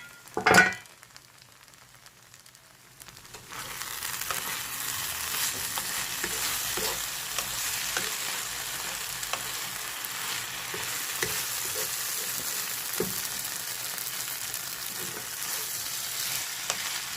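Okra masala sizzling steadily in a pan over low heat, with small crackles and pops, starting about three and a half seconds in after a short quiet spell. A brief knock or clatter sounds right at the start.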